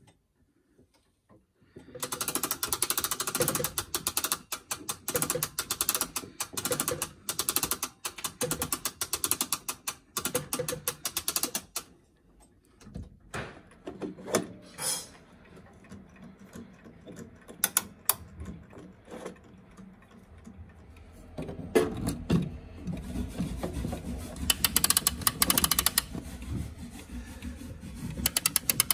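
Clock winding ratchets clicking rapidly as the winding arbors are turned with a brass crank winder. The clicking comes in two long runs, one starting about two seconds in and one starting near the end, with a quieter stretch of scattered clicks between them.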